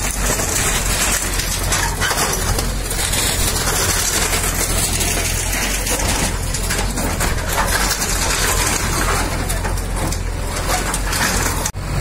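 JCB backhoe loader's diesel engine running under load, with the crunching and clatter of brick and concrete rubble as the bucket breaks and shifts masonry. The sound cuts out briefly near the end.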